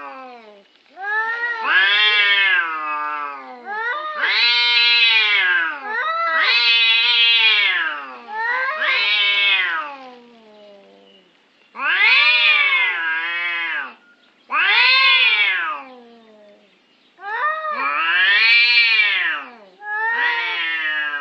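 Two domestic cats yowling at each other in a face-off: a string of long, drawn-out caterwauls, each rising and falling in pitch, with short pauses between them.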